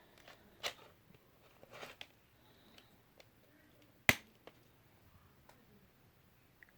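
Plastic CD jewel case being handled: a few light clicks and some rustling, then one sharp plastic snap about four seconds in.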